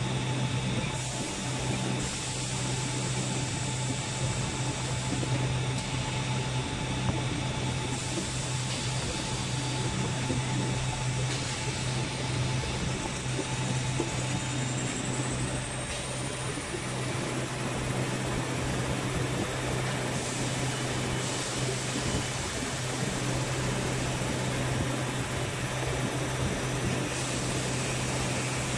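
Steady hum and whir of a running maxi jumbo roll tissue rewinder and cutter production line, with a faint high whine that rises about halfway through and then holds.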